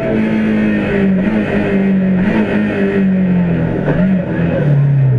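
Rally car engine heard from inside the cabin, running hard at high revs on the stage. Its pitch wavers a little, then falls steadily about four to five seconds in.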